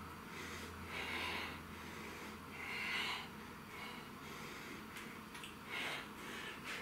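A man breathing hard through a heavy set of dumbbell hammer curls: a few forceful exhales, a second or two apart, from the strain of reps near failure.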